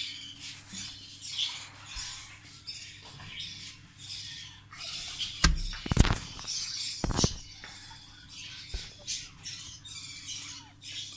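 Short, high-pitched animal calls repeating again and again, with two loud thumps about halfway through, the loudest sounds.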